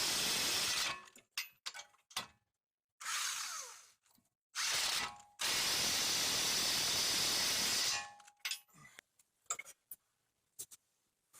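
A power tool running in three bursts: a short one at the start, a second that winds down, and a longer one of about three seconds. Light clicks and clanks of tools on metal follow near the end.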